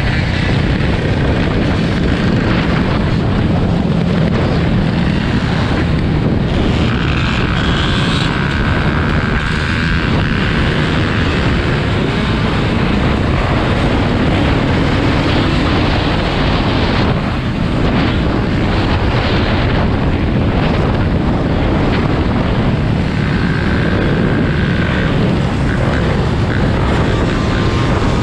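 Dirt bike and ATV engines running together under heavy wind buffeting on the microphone of a camera mounted on a moving dirt bike. Twice, a higher steady engine whine rises above the din.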